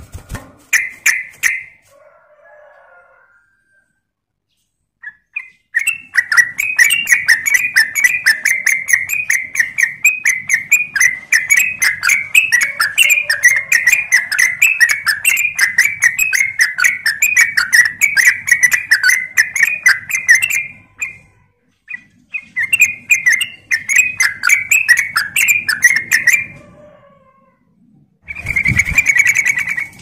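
Caged yellow-vented bulbul (trucuk) singing: a few short calls, then a long, fast, continuous chattering run, a short break, and a second shorter run. A brief louder burst with a low thump comes near the end.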